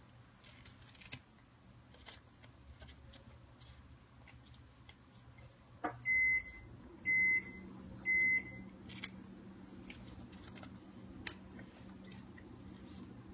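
Three loud electronic beeps about a second apart midway through, after which a low steady hum sets in. Around them, faint scattered crackles and rustles as a cat rolls in spilled dried catnip.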